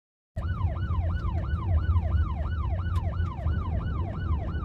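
Emergency vehicle siren in fast rising-and-falling sweeps, about four a second, over a low rumble; it cuts in suddenly about half a second in.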